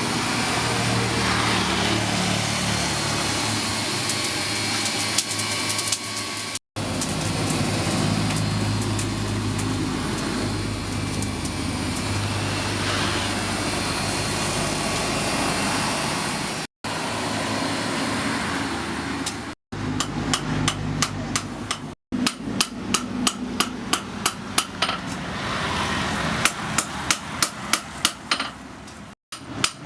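A steady machine noise with a low hum, broken by several abrupt cuts. From about two-thirds of the way through, a blacksmith's hammer strikes metal in a steady rhythm of about two blows a second.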